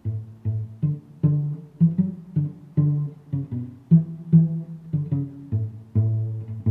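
Background music: a light, bouncy tune of plucked low strings, about two to three notes a second, starting right at the opening.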